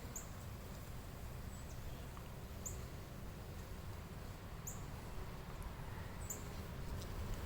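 Wind rumbling on the microphone, with a bird repeating a short, high chirp about every two seconds.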